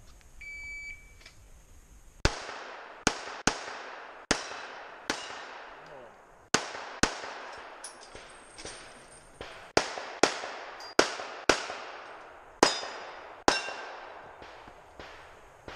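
A shot timer beeps once as the start signal, then a Smith & Wesson 686 revolver fires more than a dozen sharp, ringing shots at an uneven pace of one to two a second, with a pause of about two seconds partway through the string.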